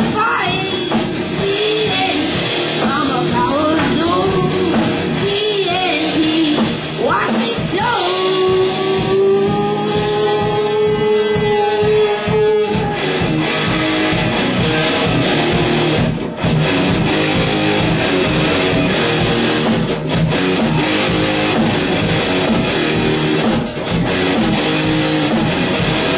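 Live rock band playing loudly, with electric guitar out front over drums. One long note is held for about four seconds, starting some eight seconds in.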